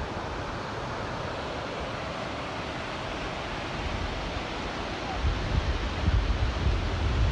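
Steady hiss of sea surf and wind, with wind buffeting the microphone in low gusts from about five seconds in.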